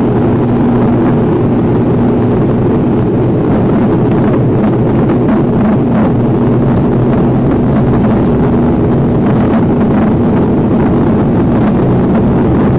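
Aircraft turboprop engines running loud and steady, heard from inside the passenger cabin, with a constant low hum over the engine noise.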